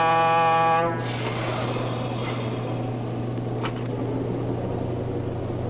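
Diesel locomotive air horn finishing a short blast about a second in, sounded as the freight train is about to move off. After it the locomotive's diesel engine runs steadily with a low hum.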